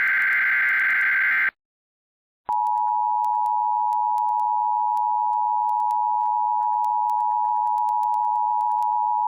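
An Emergency Alert System broadcast: a buzzy digital data burst (the SAME header) ends about a second and a half in. After a second of silence, the steady two-tone EAS attention signal starts and holds through the rest.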